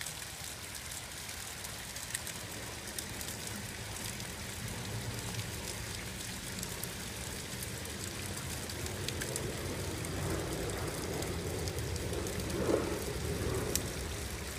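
Steady rain, with water running down a cup-style rain chain from the roof eave and many small drips splashing.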